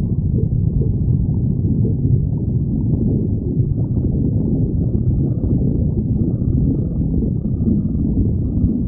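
Human stomach growling: a continuous low rumble without pauses.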